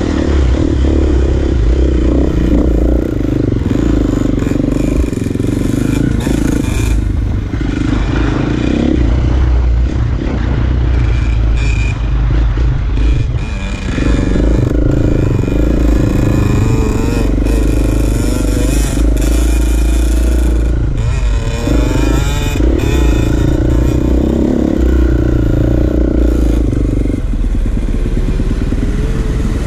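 Dirt bike engine running, its pitch rising and falling as the throttle is opened and closed.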